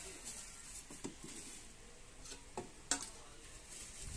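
Plastic packaging and bubble wrap rustling as they are handled, with a few light clicks and knocks, the sharpest about three seconds in.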